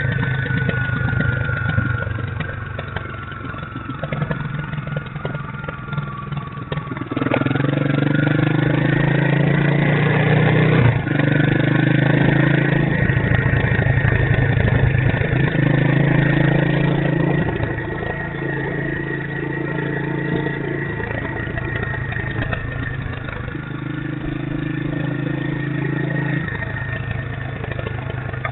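Motorcycle engine running while riding down a street. The engine note climbs and gets louder about seven seconds in as the bike picks up speed, then eases off around eighteen seconds in.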